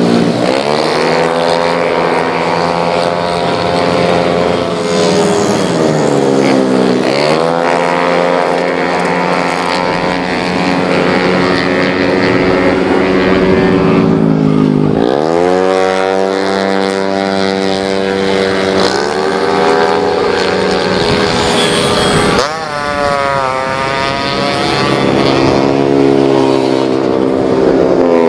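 A Yamaha Mio J scooter's tuned 130cc single-cylinder four-stroke engine running hard: it revs up steeply and holds a high, steady pitch, then drops off and climbs again several times.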